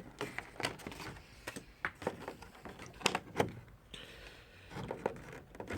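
Hands handling the plastic packaging of a Pokémon trading-card collection box to get the promo cards out: a string of irregular clicks and taps, with a short scrape about four seconds in.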